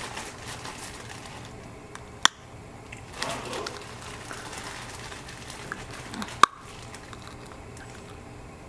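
Quiet handling sounds at a kitchen stove: two sharp clicks about four seconds apart, with a stretch of soft rustling between them, over a faint steady background.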